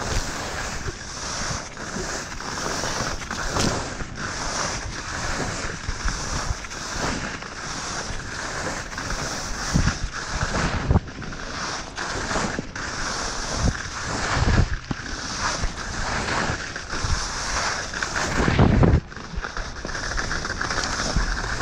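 Skis sliding and scraping over snow in quick linked turns, a hiss that swells about once a second, with wind buffeting the microphone. There are a few louder low thumps, about ten, fifteen and nineteen seconds in.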